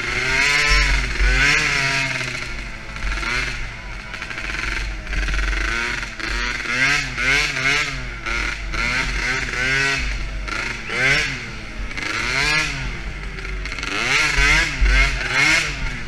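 The small engine of a DRR 50 youth quad revs up and down over and over as the throttle is opened and closed around the track. It is heard close up from the rider's helmet, with wind buffeting rumbling on the microphone.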